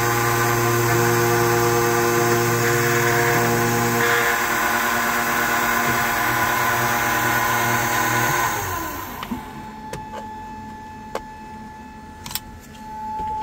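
Keyline key-cutting machine running steadily as it cuts a new Toyota key blade, then winding down with falling pitch about eight and a half seconds in. A few clicks and knocks follow as the machine is handled.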